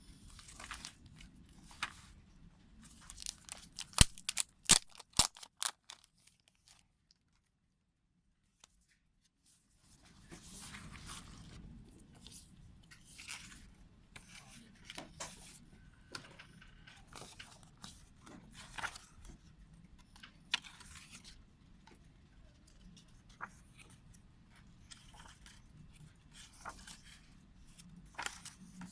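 Hands unwrapping and handling a CD package: plastic wrapping crinkling and tearing, with clicks and taps of the case. A cluster of sharp clicks comes about four to six seconds in, followed by a few seconds of silence before the rustling and handling start again.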